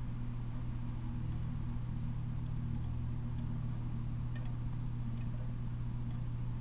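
Steady low hum with faint scattered ticks over a light hiss.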